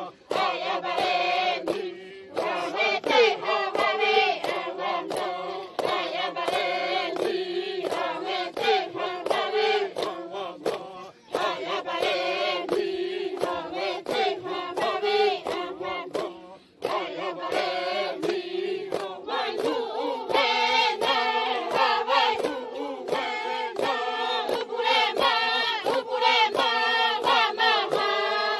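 Xavante women singing a chant together in unison, with a steady rhythmic pulse and brief breaks between phrases.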